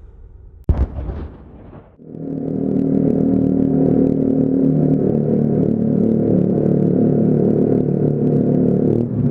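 Yamaha Zuma 125's single-cylinder four-stroke engine breathing through a short Two Bros titanium exhaust without its power tip, so it runs louder than stock. After a short sharp burst under a second in, the engine revs up about two seconds in and holds loud and steady at high revs.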